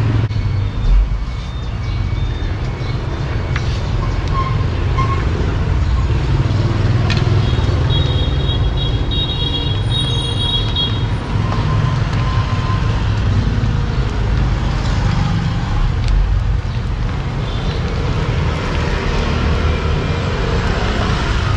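Steady road-traffic rumble, with a horn sounding for a few seconds about eight seconds in. Oil sizzles faintly underneath as dough rounds fry.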